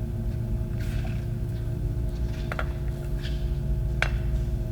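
Steady background hum with a few faint light clicks and taps, about one, two and a half, and four seconds in.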